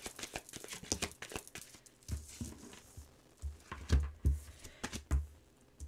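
Tarot cards being handled at a table, with quick card clicks and flicks for the first two seconds. Several soft low thumps follow.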